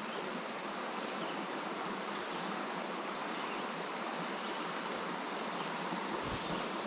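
Small woodland stream running over a stony riffle: a steady, even rush of water.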